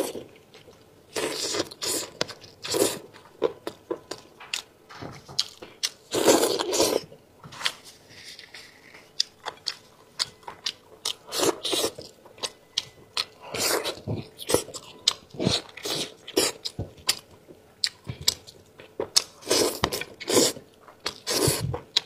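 Close-up eating sounds: a person biting and chewing meat from a spicy sheep's head, a steady run of wet clicks and smacks with louder crunchy bites every few seconds.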